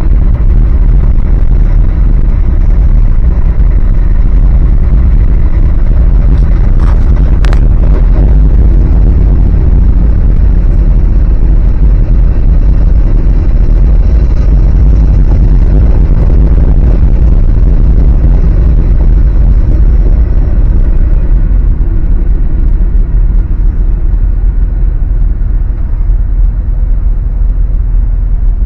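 Old Dodge truck driving, a loud steady low rumble of engine and road noise, with two sharp knocks about seven seconds in. The rumble eases slightly over the last third.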